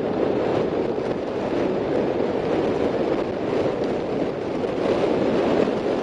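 Steady wind noise rushing over the microphone of a camera riding on a moving bicycle.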